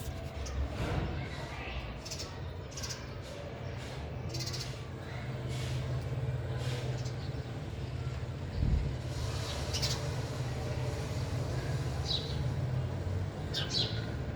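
Sparrows chirping in short, scattered high calls, clearer near the end, over a steady low hum, with a dull thump a little past halfway.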